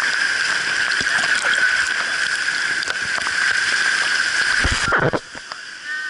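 Water of a small rocky waterfall pouring and splashing close to the camera, a loud, steady rush. It cuts off abruptly about five seconds in, leaving a fainter rush of the falls.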